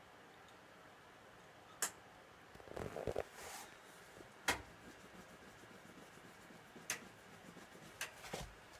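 Electra AWF683 front-loading washing machine in its 95° boilwash heating stage: a few scattered sharp clicks and knocks, with a short stretch of thudding about three seconds in.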